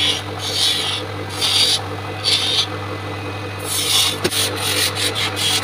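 Wood lathe turning a coconut-wood workpiece while a hand chisel cuts into it: the chisel scrapes in repeated passes, swelling and easing under a second apart, over the steady hum of the lathe's motor. A few sharp clicks come near the end.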